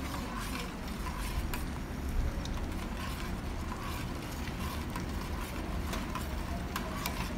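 Metal spoon stirring and scraping around a stainless steel pot of milk curdled with lemon juice, its curds separating from the whey, with scattered light clicks over a steady low rumble.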